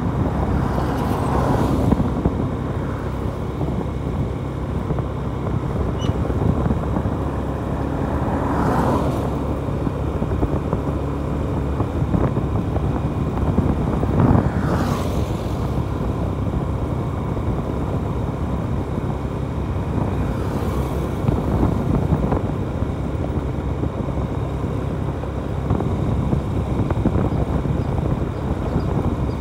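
Riding a motorcycle on the road: steady engine, wind and road noise, with a few brief louder swells.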